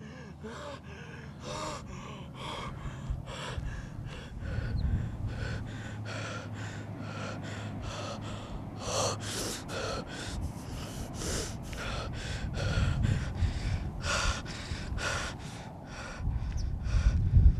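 A man gasping for breath, heavy and ragged, about two breaths a second.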